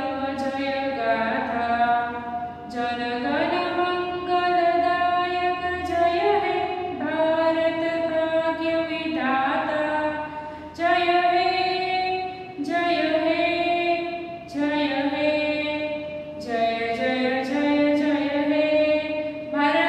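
A woman singing solo and unaccompanied: a slow melody of long held notes, with short breaths between phrases.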